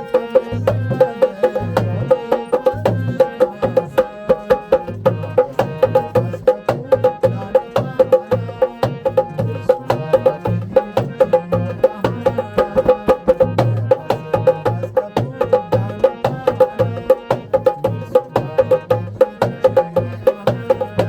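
Instrumental music with a fast, steady hand-percussion beat under a sustained melody, and no singing.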